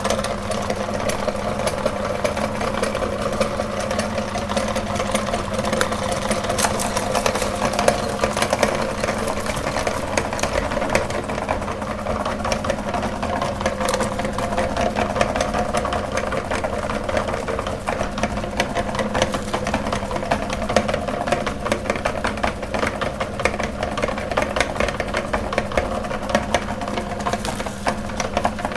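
Electric meat grinder running steadily, its motor humming under a dense fast rattle and crackle as it grinds marshmallows.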